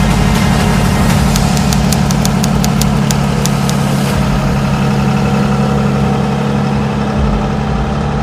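Heavy diesel engine running steadily, with a run of sharp clicks at about four a second from about a second in until about four seconds in.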